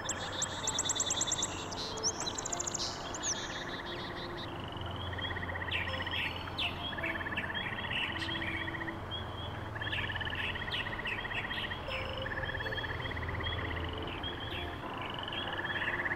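Birds singing: repeated short trills of about a second each and scattered chirps, with a run of high, quickly repeated notes in the first two seconds, over a faint low hum.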